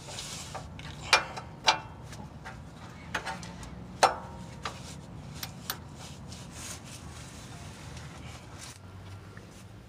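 Breaker bar and deep socket straining on a rusted, seized exhaust flange bolt at the catalytic converter: a scattering of short sharp metal clicks and knocks, the loudest about four seconds in, over a low steady hum. The bolt does not break loose.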